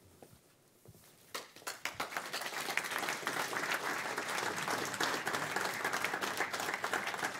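Audience applauding. A few scattered claps come in about a second and a half in, then quickly build into steady applause.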